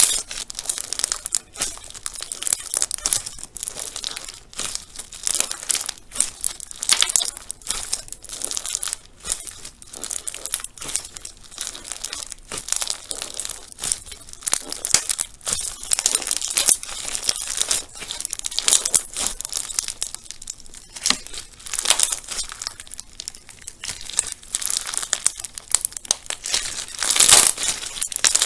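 Crunchy slime being squeezed and pressed: a dense, continuous run of small crackles and pops, loudest near the end.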